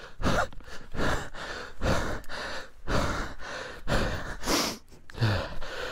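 Heavy, out-of-breath panting close to a helmet-mounted microphone, about one breath a second: a rider worn out from wrestling a stuck dirt bike.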